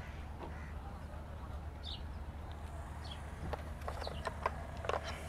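A few light plastic clicks about three and a half to five seconds in as a GoPro camera is handled and fitted to its mount, with short high bird chirps about once a second over a low steady background rumble.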